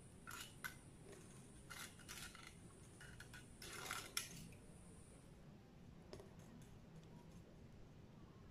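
Faint small clicks and rustles, several in the first four seconds, from hands handling fine jewelry wire and a metal hoop earring; otherwise near silence.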